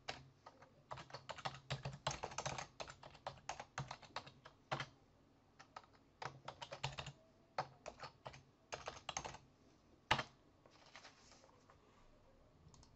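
Typing on a computer keyboard: quick runs of keystrokes broken by short pauses, then a single sharper click about ten seconds in.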